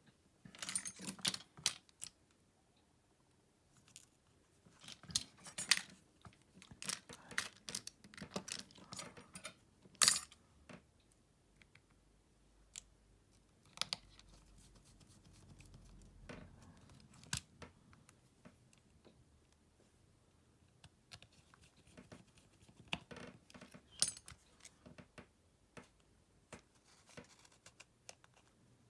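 Small hand tools and smartphone parts being handled during a phone teardown: irregular clicks, taps and light scrapes in clusters, with a sharp knock about ten seconds in and quiet gaps between.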